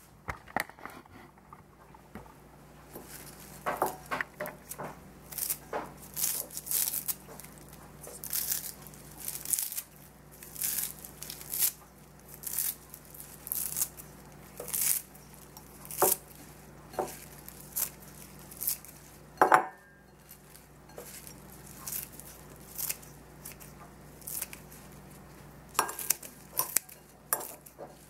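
Kitchen scissors snipping fresh cilantro into a ceramic bowl: a string of short, crisp snips, roughly one a second, with one louder clink about two-thirds of the way through.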